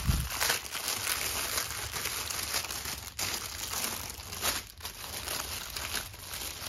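Clear plastic packaging crinkling and rustling as it is handled and opened, with small bags of diamond-painting drills inside. A low thump comes right at the start.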